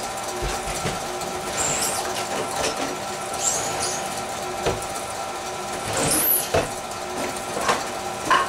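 KitchenAid Ultra Power stand mixer running steadily at low speed, its motor giving a constant whine as the beater stirs dry flour, sugar and walnuts in the steel bowl. Occasional clicks and a few brief high squeaks sound over it.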